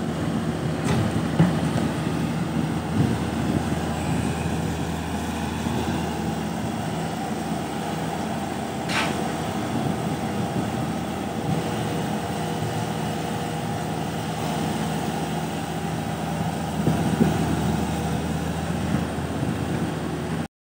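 Hitachi ZX110 hydraulic excavator's diesel engine running steadily under working load as the machine swings and digs in rock and soil, with a sharp knock about nine seconds in.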